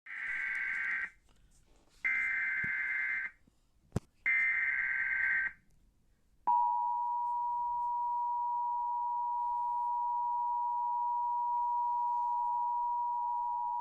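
Emergency Alert System SAME header: three warbling bursts of digital data tones, each about a second long and about a second apart, with a short click just before the third. About six and a half seconds in, the steady two-tone EAS attention signal begins.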